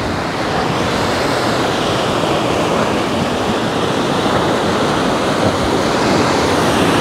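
Rough sea surging and breaking against a rocky shore: a continuous loud rush of surf that swells slightly.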